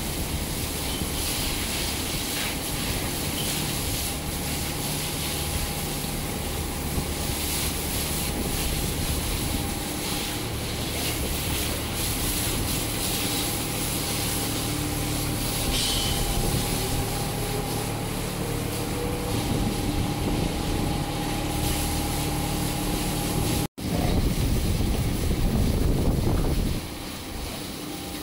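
Water hose spraying a jet of water over a bull, with a steady mechanical drone and hum underneath. Near the end the sound cuts abruptly, then a louder rushing runs for a few seconds before dropping.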